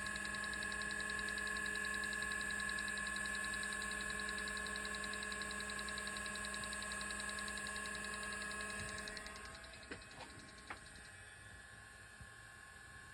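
An IBM 0665 30 MB MFM hard drive running in a PC, with a steady whine and hum. The hum drops in level about nine seconds in, then there are a couple of sharp clicks. The drive is working again after its blown tantalum capacitors were replaced.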